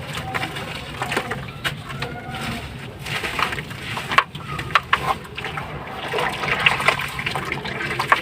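Sand-cement slabs crumbling in water: an irregular run of crackling and crumbling with sharp cracks now and then.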